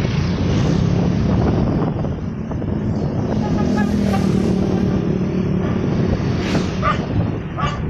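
Motorcycle engine running steadily while riding in street traffic, with road and wind noise. A few short, higher-pitched sounds stand out near the end.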